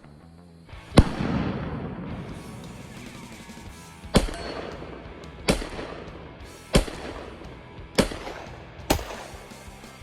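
Springfield XD-M Elite 3.8" Compact 10mm pistol fired six times. There is a single shot about a second in, followed by a long echo, then five more shots roughly a second and a quarter apart. The first shot is the loudest.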